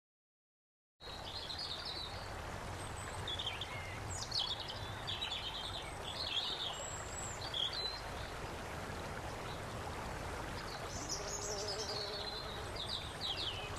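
Birds chirping and singing over a steady background hiss, starting about a second in; a faint steady hum joins near the end.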